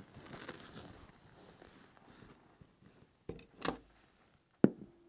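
Vinyl seat cover rustling faintly as it is pulled over the padding. Then a hand staple gun fires with a sharp snap about three and a half seconds in, and again about a second later, driving staples into the seat base.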